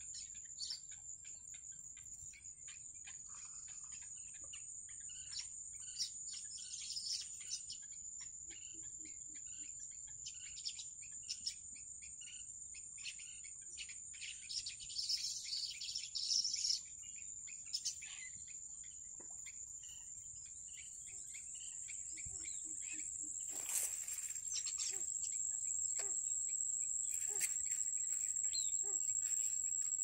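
A steady, high-pitched insect buzz like crickets, with scattered short peeping calls from heron chicks in the nest that are busiest around the middle. A brief rustle comes about three quarters of the way through.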